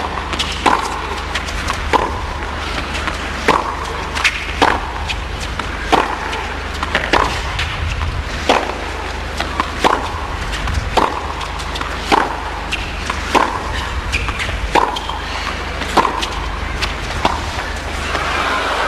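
Tennis balls struck by rackets in a long baseline rally: sharp pops that repeat steadily, one every second or so, with the ball's bounces on the court between them.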